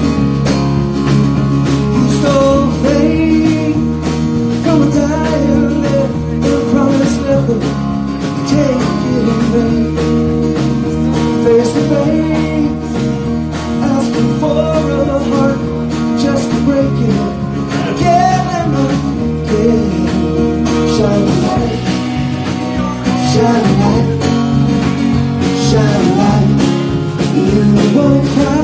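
Live band playing a country-rock song: a man singing over strummed acoustic guitar, with drums.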